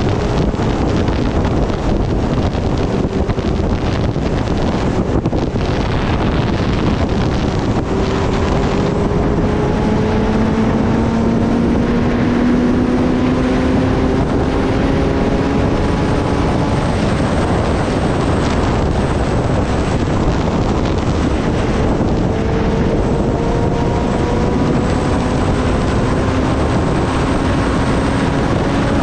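Kawasaki Ninja ZX-10R inline-four engine heard under heavy wind rush on the microphone at highway speed. The engine's pitch climbs slowly twice as the bike accelerates in gear, once in the middle and again near the end.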